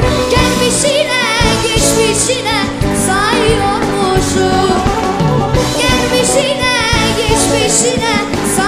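A voice singing a melody with wavering, ornamented pitch over instrumental accompaniment.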